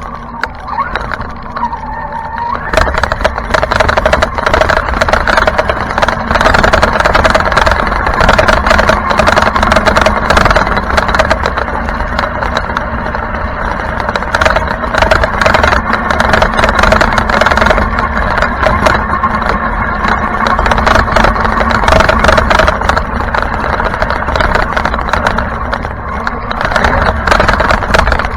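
RC truck driving laps on a dirt track: its motor running and revving, with tyres on dirt and many small clicks and rattles from the chassis and loose grit. It gets louder about three seconds in.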